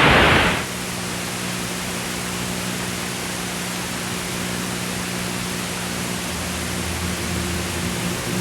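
Steady static hiss with a faint low hum, after a louder burst of noise that cuts off about half a second in.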